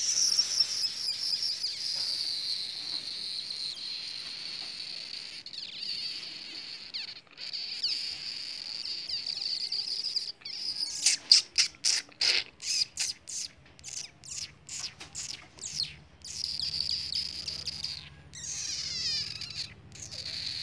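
A steady high-pitched insect drone, broken off abruptly a few times, with a quick run of short, sharp chirps in the middle.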